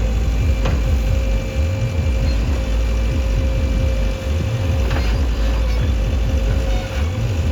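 Diesel engine of a JCB 3DX backhoe loader running steadily, with a steady whine over the rumble and a few faint knocks.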